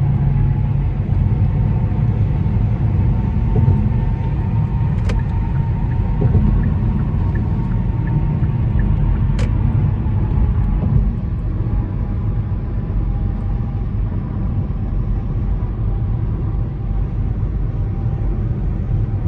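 Steady low rumble of a car being driven, engine and road noise heard from inside the cabin, with two faint clicks about five and nine seconds in.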